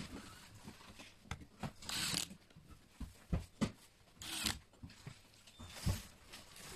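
An electric screwdriver turning screws in a gun safe's door panel, running in two short buzzing bursts, about two seconds in and again past four seconds, amid clicks and knocks of the metal and plastic parts being handled.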